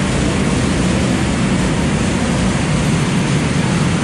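Go-kart engine running steadily, heard onboard with wind noise on the microphone.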